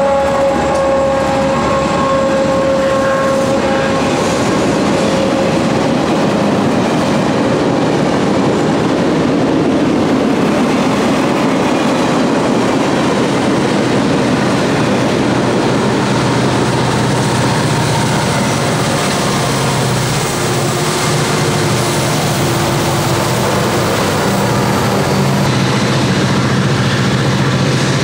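Conrail diesel locomotives passing at speed with a freight train, engines running and wheels rolling on the rails. A horn note slides slightly lower and fades out in the first few seconds, and a low engine drone comes up in the second half.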